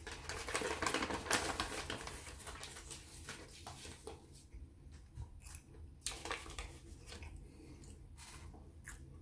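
Paper food wrapper crinkling and crackling under a hand, busiest in the first couple of seconds, then a few scattered crackles.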